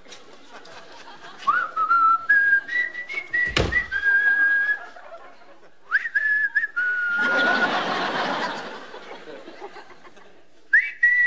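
A man whistling a tune in short phrases of steady notes that step up and down in pitch. A sharp knock comes about three and a half seconds in, and a burst of studio-audience laughter follows the second phrase.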